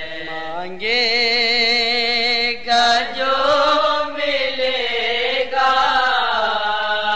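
A solo voice singing a devotional manqabat for Ali in Urdu, drawing out long melismatic held notes with strong vibrato. It rises to a louder, higher phrase about a second in.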